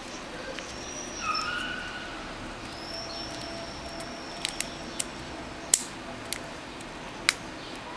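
Plastic cap pieces clicking as fingers press and link the ends of a cap bracelet, with several sharp clicks in the second half. A dog whines thinly and faintly in the first half.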